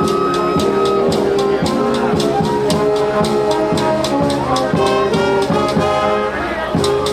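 High school concert band playing: brass holding chords and moving lines over a steady drum-kit beat.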